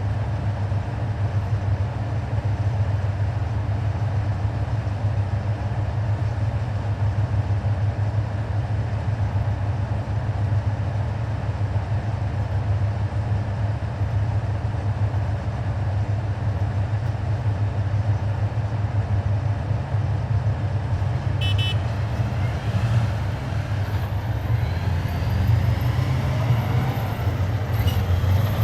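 Heavy military vehicles driving past in a column, their engines making a steady low drone. In the last several seconds, engine tones glide up and down as a vehicle revs and moves off.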